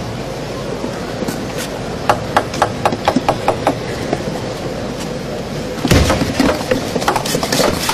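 Table tennis rally: the celluloid ball clicks sharply off bats and table in a quick run of about eight hits. About six seconds in, a loud crowd of spectators breaks into shouting and cheering.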